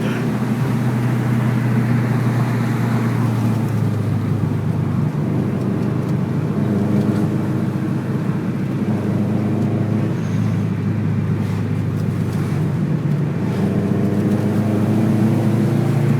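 Car under way: a steady engine drone over road noise, the engine note rising a little twice as it picks up revs.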